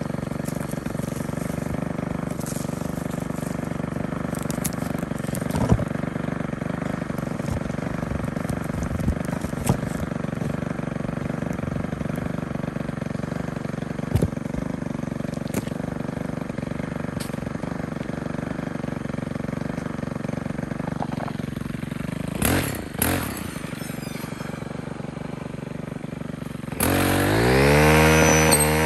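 Gas-powered string trimmer engine running steadily at low speed, with a brief rev a little past two-thirds of the way through. Near the end it revs up loudly, pitch rising and then falling, as it cuts into tall weeds. A few short knocks from the phone being handled.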